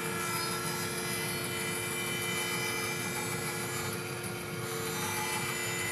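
Bandsaw running and resawing a hardwood board into thin strips: a steady machine hum with fixed tones as the blade cuts.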